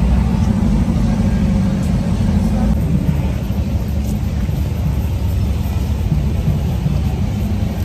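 Cars driving past on a street: a loud, low, steady rumble of engines and traffic.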